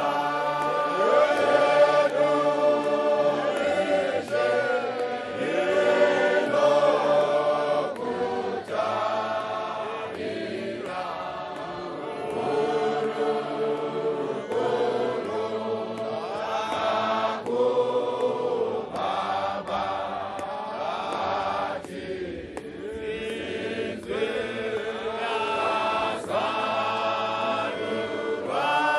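Men's choir singing a hymn together in many voices, unaccompanied, in sung phrases with brief breaks between them.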